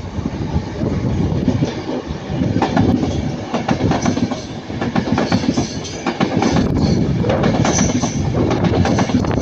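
East Midlands Railway Class 170 Turbostar diesel multiple units, two coupled sets, passing close by, their wheels clattering rhythmically over rail joints above a steady rumble.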